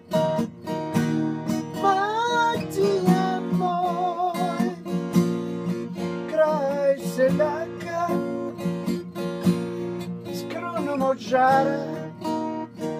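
Acoustic guitar strummed steadily under a man singing a slow song in long, wavering held notes.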